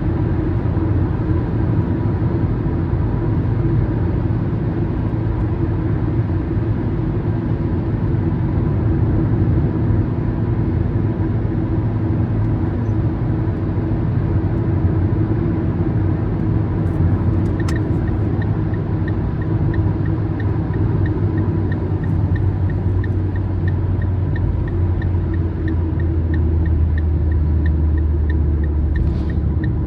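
A car driving, with a steady rumble from the engine and tyres. A little past halfway there is a click, then a turn-signal indicator ticking evenly, about two to three ticks a second.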